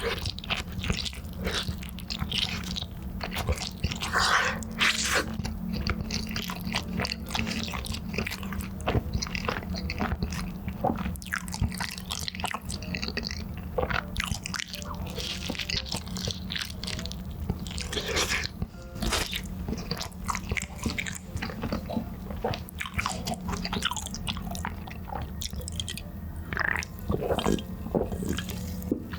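Close-miked mouth sounds of someone eating Chicago-style cheese meatball pizza: repeated bites and chewing, coming as many irregular short clicks and smacks.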